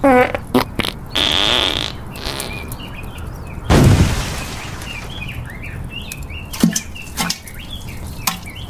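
Cartoon sound effects: short sliding squeaky blasts and a held high tone in the first two seconds, a loud boom about four seconds in, then birds chirping with a few sharp clicks.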